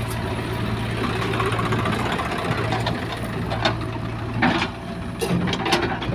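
Diesel engines running steadily as a JCB 3DX backhoe loader works its bucket, dumping soil into a tractor trolley, with a few short knocks and thuds from about halfway through.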